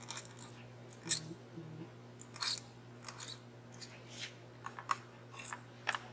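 Quill pen's metal nib scratching across glass in about ten short strokes as fine lines of enamel are pulled, over a faint steady hum.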